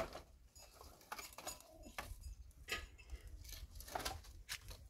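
Irregular light clicks and knocks, a few each second, over a low rumble.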